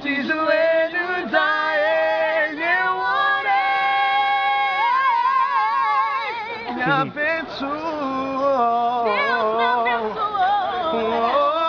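A woman and a man singing a slow Portuguese love song together, with long held notes and vibrato.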